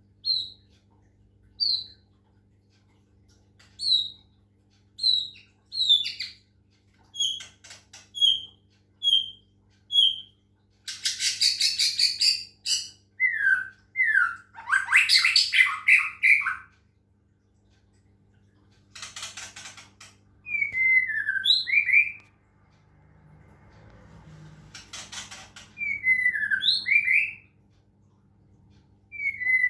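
White-rumped shama singing: a run of short, clear whistled notes about once a second, then louder phrases of harsh rattling mixed with quick sliding whistles, broken by pauses of a second or two.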